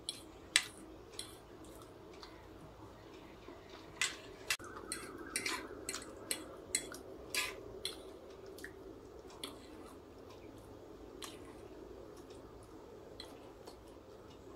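Metal fork tapping and scraping on a plate as noodles and peas are picked up: scattered sharp clicks, busiest in the middle, over a faint steady hum.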